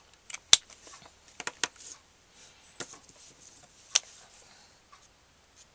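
A few sharp plastic clicks and taps from Copic markers being capped, uncapped and handled while she changes colours. The loudest click comes about half a second in, and the last clear one about four seconds in.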